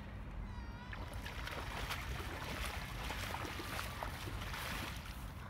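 Legs splashing and sloshing through shallow lake water as a person wades, the splashing picking up about a second and a half in. A low wind rumble on the microphone runs underneath.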